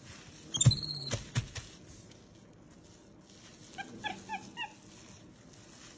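Capuchin monkey giving a quick run of five short, slightly falling chirps about four seconds in. Earlier, about half a second in, a short high squeal comes with a couple of sharp thumps.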